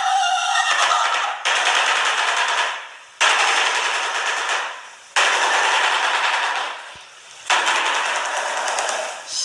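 Shoebill clattering its bill: a rapid rattle of clicks in about five bursts, each lasting one and a half to two seconds, with short pauses between them.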